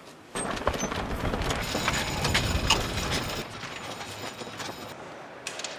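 Wheeled film-equipment carts, a large fan on a dolly among them, rattling and clattering as they are pushed over pavement; the clatter starts about a third of a second in, is loudest for about three seconds, then eases off.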